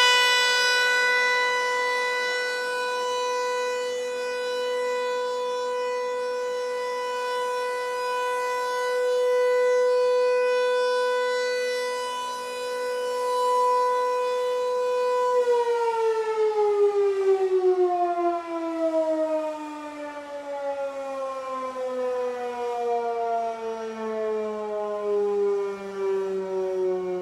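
Federal Signal 508-128 electromechanical tornado siren sounding the Full Alert steady tone. About halfway through the power cuts and the siren winds down, its pitch falling steadily.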